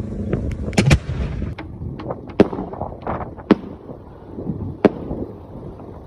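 Fireworks going off, set off by electronic remote firing for an 8-inch display shell: about a dozen sharp bangs and cracks at irregular intervals, the loudest pair about a second in.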